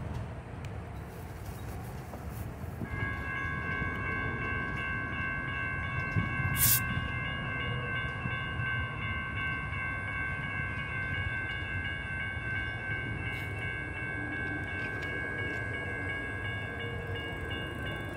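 Electronic warning bell at a railroad grade crossing, starting about three seconds in and ringing on steadily while the gates come down for an approaching light-rail train, over a low rumble. A short, sharp hiss sounds once, about a third of the way through.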